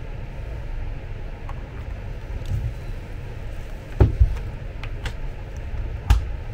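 Plastic housing parts of an electric bed's linear actuator knocking as they are fitted together by hand: two knocks about four seconds in and another near the end. A steady low rumble runs underneath.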